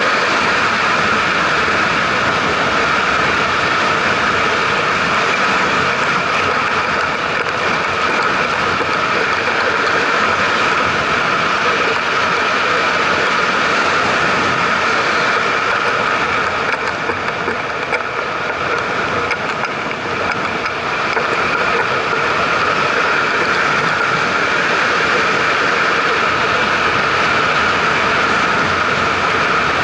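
Steady rushing wind and road noise from a camera mounted on a vehicle moving along a paved road, easing slightly for a few seconds about two-thirds of the way through.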